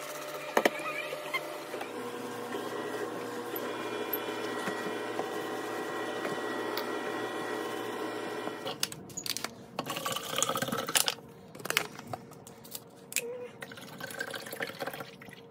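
Kitchen cleaning sounds. A short spritz from a trigger spray bottle comes about half a second in, then a steady watery rush with a ringing tone lasts about eight seconds and stops suddenly. After that come scattered wiping and scrubbing noises, and near the end water is poured from a plastic bottle into a plastic tumbler.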